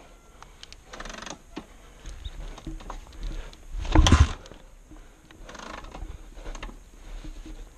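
Scattered small clicks and rustling of riding gear and handlebar controls, with one loud short thump about four seconds in.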